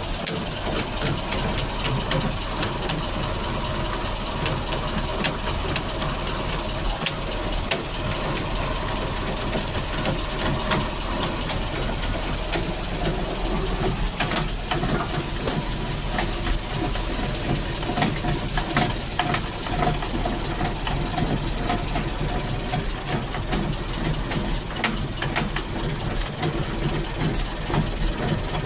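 Vehicle driveshaft noise: a steady hum and hiss with many irregular sharp clicks and knocks, the sort of sound demonstrated for a worn or failing driveshaft.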